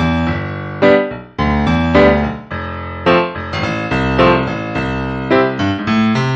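Background music: an instrumental keyboard melody of short piano-like notes that change every fraction of a second.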